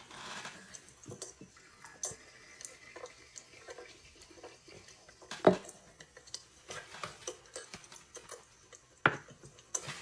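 Scattered small clicks and taps, with three louder sharp knocks, from a can of lemon highball being handled and drunk from.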